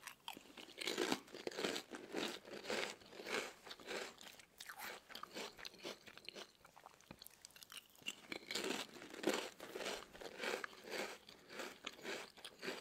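Potato chips being bitten and chewed close to the microphone: crisp crunches in quick runs, thinning out in the middle and picking up again about eight seconds in.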